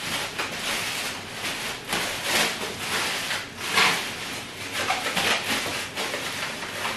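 Clear plastic bag rustling and crinkling as raw goat meat portions are packed into it and the bag is handled, with louder crackles about two and a half and four seconds in.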